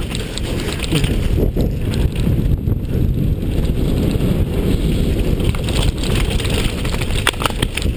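Wind buffeting a helmet-mounted camera's microphone over the rumble of mountain bike tyres rolling fast on loose gravel and rock, with scattered clicks and rattles from the bike and stones.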